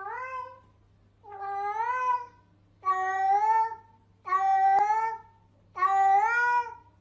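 A domestic cat meowing five times in a row, each meow long and drawn out, about one every second and a half.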